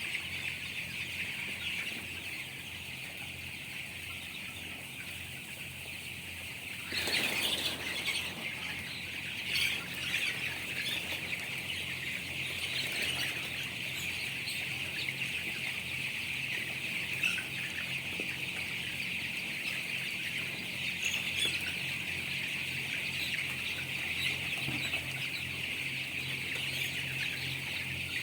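A flock of young chickens in a poultry house, many birds peeping and chirping at once in a steady chorus over a low steady hum. About seven seconds in there is a brief louder flurry, like wings flapping.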